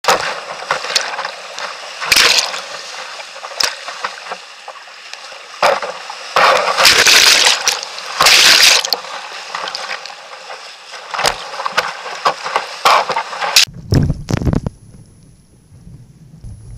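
Whitewater rushing around a kayak, heard on a boat-mounted camera, with repeated loud splashes of water hitting the bow and the microphone as it runs a steep rapid. A little over three-quarters through, the sound abruptly turns muffled and low, with a few dull thumps.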